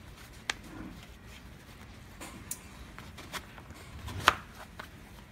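Hands fitting a metal insert plate into a blood pressure monitor's fabric cuff: a few sharp clicks and taps with faint rubbing between, the loudest click about four seconds in.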